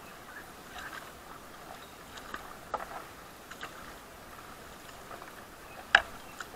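Raft paddles dipping and pulling through calm river water, a few scattered splashes. About six seconds in, a single sharp knock, the loudest sound.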